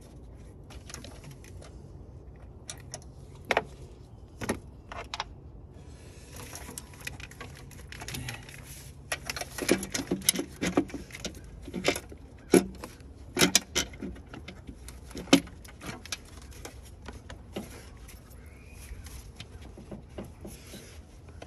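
Metal hand tools clinking and rattling in a car's engine bay as a screw is worked off: irregular sharp clicks and clanks, busiest in the middle, over a steady low hum.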